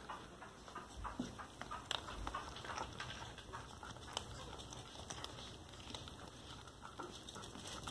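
Chihuahua eating dry food from a small steel bowl: irregular small clicks and crunches of kibble and bowl.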